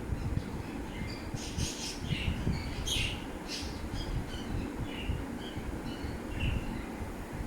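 Birds chirping and calling in short notes, a cluster of sharper calls in the first half, over a steady low rumble of wind on the microphone.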